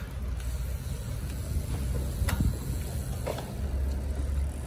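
Rumbling wind and road noise on the microphone while moving along with a bicycle held in a wheelie, with three sharp clicks.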